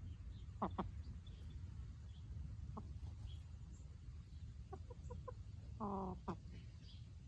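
Domestic hens clucking quietly: two short, sharp clucks under a second in, a quick run of soft notes around five seconds, and a longer drawn-out cluck about six seconds in.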